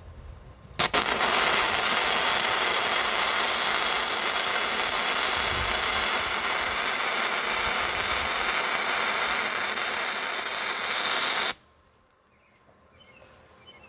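Lincoln Electric Power MIG 211i welding with .035 flux-core wire: the arc strikes with a short stutter about a second in, then crackles and hisses steadily for about ten seconds as a bead is laid, and stops abruptly near the end. Faint birds chirp afterwards.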